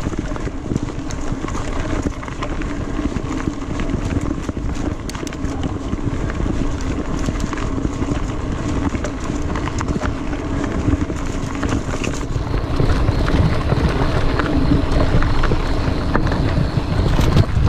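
Mountain bike riding fast down a dirt forest singletrack: tyres rumbling over dirt and roots, with the bike rattling and knocking over the bumps and wind on the camera microphone. It gets louder about two-thirds of the way through as the pace picks up.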